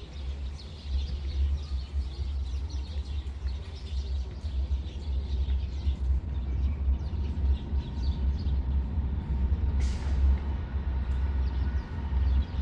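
Outdoor ambience: an uneven, gusting low rumble with small birds chirping faintly, and one brief sharp high sound about ten seconds in.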